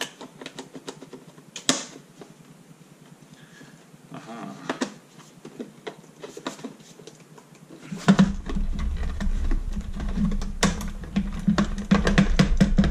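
Plastic parts of a Larc M19-A BB machine gun's housing clicking, knocking and scraping as the plastic outer barrel covering is worked loose and pulled off. From about 8 s in, a steady low hum starts under the clicks and is the loudest sound to the end.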